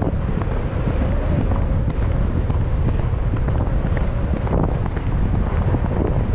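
Heavy wind buffeting on a rider-mounted camera's microphone as the horse gallops, with the horse's hoofbeats underneath.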